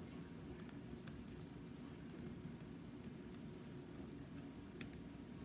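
Soft clicking of computer keyboard keys being typed, in two short runs, one early and one near the end, over a faint steady low hum.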